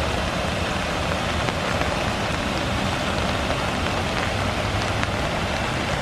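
Water pouring down a small stepped waterfall into a river channel: a steady, even rushing.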